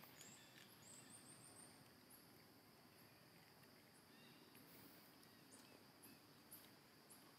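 Faint outdoor ambience near silence: a steady high-pitched insect drone, with a quick run of short, high chirps in the first second or two.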